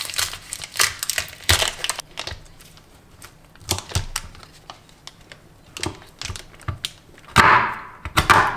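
Paper wrapper crinkling as a round of camembert is unwrapped, then the scattered clicks of a knife blade scoring the cheese and tapping the wooden cutting board. A louder rustle comes near the end.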